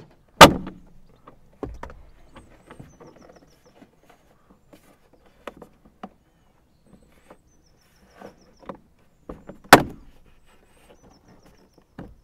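Plastic A-pillar trim on a Ford Focus Mk2 being pried off its retaining clips: two loud, sharp snaps as clips pop loose, about half a second in and again near ten seconds. Smaller clicks and plastic rattles come between them.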